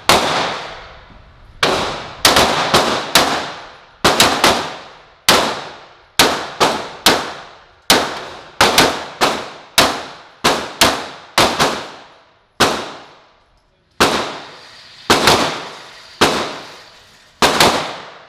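Ported Glock 17 9mm pistol firing a long string of about thirty shots, in quick runs of three or four and in pairs with short pauses between them. Each report rings out and fades.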